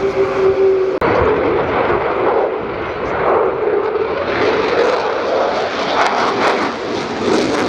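Fixed-wing aircraft engine noise: a steady engine tone that changes abruptly about a second in to a loud, wavering rushing sound, rising and falling in pitch as the aircraft flies past.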